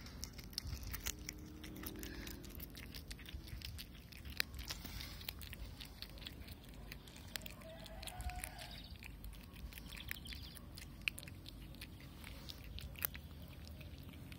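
Domestic cat chewing the last remains of a mouse: faint, irregular crunching clicks.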